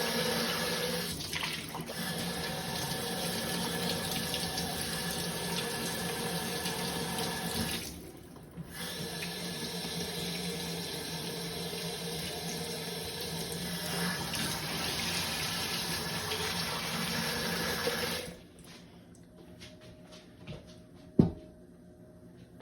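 Kitchen tap running cold water in a steady gush, briefly cut off about eight seconds in and then turned off about eighteen seconds in. A single sharp knock follows near the end.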